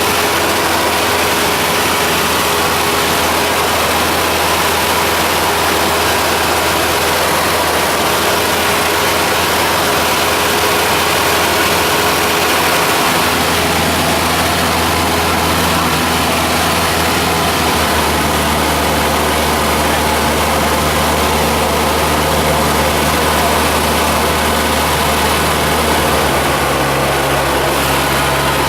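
Cessna 172's piston engine and propeller droning loudly and steadily in flight. Its low tone shifts slightly a few times, about halfway and again near the end.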